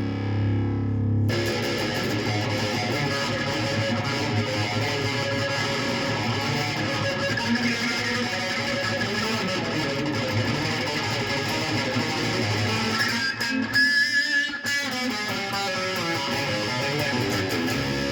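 Stringed instrument being played, with many notes ringing together and held. The sound breaks up briefly about two-thirds of the way through.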